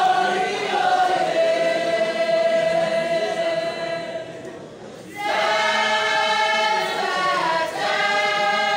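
Choir singing long held notes. The first note fades out about four to five seconds in, and a new held chord starts just after five seconds, with a small step in pitch near the end.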